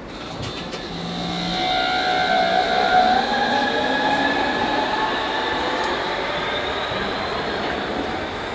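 Hamburg Hochbahn DT4 electric metro train pulling away from the platform. Its traction motors give several whining tones that shift in pitch as it gathers speed, over wheel-on-rail rumble. The sound grows louder over the first couple of seconds, then holds.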